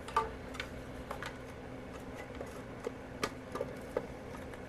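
Irregular light clicks and ticks of small screws and a screwdriver being handled during a repair, over a faint steady hum.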